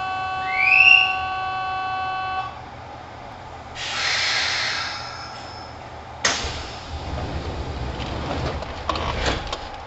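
Station departure bell sounding a steady electronic tone for about two and a half seconds, with a short rising whistle in the middle of it. The Kintetsu 1010 series train's doors then close with a hiss of air and a knock about six seconds in, and a low rumble follows as the train starts to move off.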